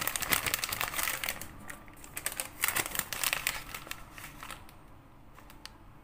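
Plastic shopping bag crinkling and rustling as it is handled close to the microphone, busiest in the first few seconds and quieter toward the end.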